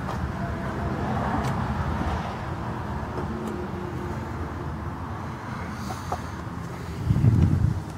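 Small-block Chevy 355 V8 idling steadily under the open hood, its top end freshly rebuilt, an engine the owner says has a small knock. Near the end, a short burst of wind on the microphone.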